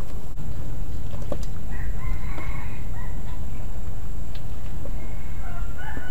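A rooster crows twice: once about two seconds in, and again starting near the end. Underneath runs a steady low rumble, with a few light clinks of a ladle against the wok.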